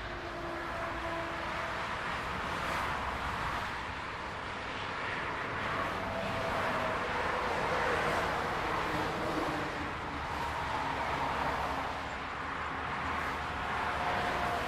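Highway traffic: a steady rush of tyre and engine noise from passing vehicles, swelling and easing as they go by, with faint sliding tones from individual vehicles.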